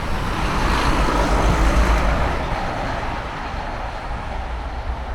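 A motor vehicle passing by, its sound swelling to its loudest about a second and a half in and then fading away.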